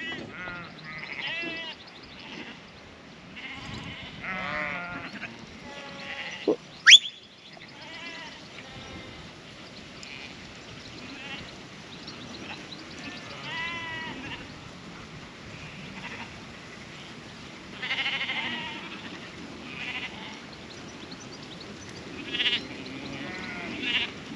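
A mob of ewes and lambs bleating, many overlapping calls with a wavering pitch. A single short, sharp rising whistle about seven seconds in is the loudest sound.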